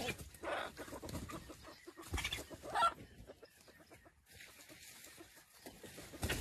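Red junglefowl clucking: a few short clucks in the first half, the last and loudest a little before the middle, then quieter.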